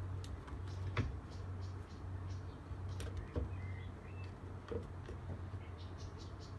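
A dog's claws tapping on wooden deck boards as it walks between scent containers: a few light, scattered clicks.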